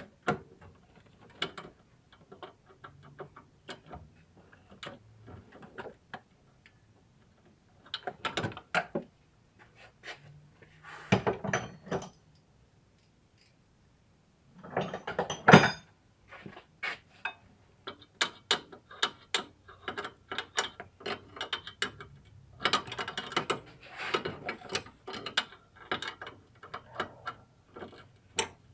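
Ratchet wrench clicking in runs of quick strokes while turning a fastener on an A/C compressor clutch, with louder metallic clanks here and there; the loudest comes about fifteen seconds in.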